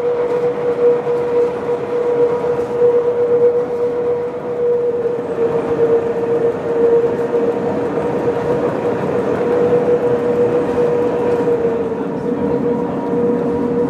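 Pilatus Railway electric rack railcar running steadily on the cog track, with a constant whine from its drive over the rumble of the running gear.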